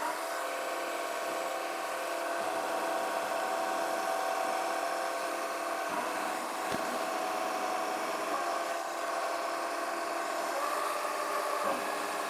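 Variable speed mini lathe running at about 1500 RPM with a steady whine of several tones while its insert tool turns a cold rolled steel bar at a light cut of about 5 thou, with a few faint ticks. The cut goes smoothly, a load the machine handles well.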